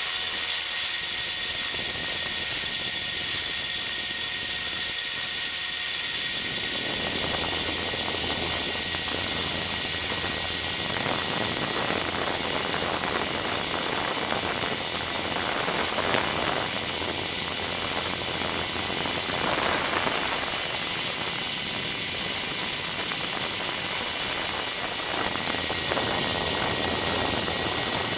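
Walkera V450D03 electric RC helicopter heard from a camera strapped to its landing gear: a steady high whine from the electric motor and drive, which shifts slightly in pitch a few times. About six or seven seconds in, a broad rushing sound of rotor wash joins it as the helicopter lifts off and climbs.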